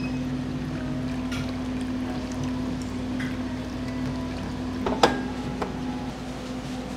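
Broth pouring steadily from a metal kettle into a stone hot pot, over a constant low hum. A single sharp clink about five seconds in.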